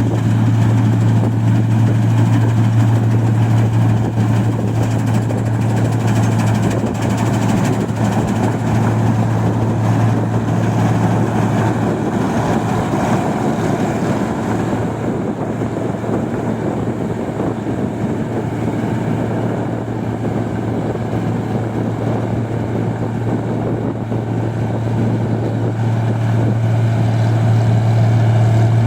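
Engine-driven rice machine running steadily, with a constant low hum over a mechanical clatter; the hum weakens for a while in the middle and then comes back.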